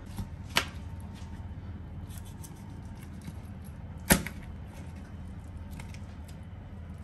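Kitchen utensils knocking against dishes: two sharp knocks about three and a half seconds apart, the second louder, with a few faint clicks, over a steady low hum.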